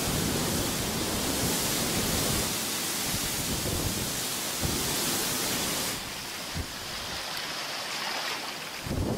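Strong wind over rough, whitecapped open water: a loud steady rushing hiss with gusty low rumbling on the microphone. About six seconds in it drops suddenly to a quieter, softer hiss.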